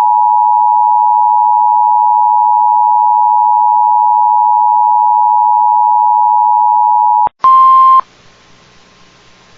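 Emergency Alert System two-tone attention signal: two steady tones sounded together, held for about seven seconds, then cut off. A brief, louder single tone follows for about half a second, then faint hiss with a low hum.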